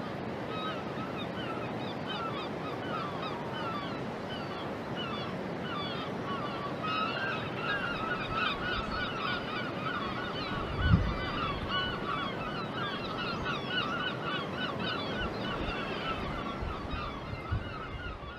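A flock of birds calling, many short calls overlapping in a continuous chorus that grows denser about seven seconds in, over a steady background hiss. A single low thump about eleven seconds in.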